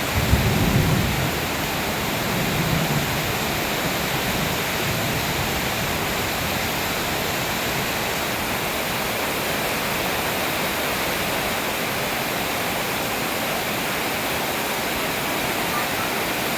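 Heavy rain pouring down steadily, an even hiss, with some low rumbling in the first few seconds.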